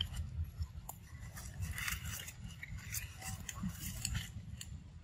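Irregular crackling and rustling of leaves and twigs as a small monkey climbs a leafy sapling, over a steady low rumble.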